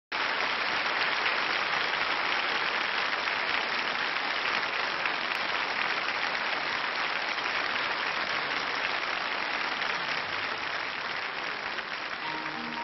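Studio audience applauding steadily, easing off slightly toward the end; a grand piano starts playing in the last half second.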